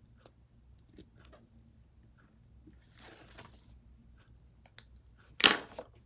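Pen and paper being handled while drawing: scattered faint ticks and scratches, a soft rustle about three seconds in, then a short, much louder rustle near the end.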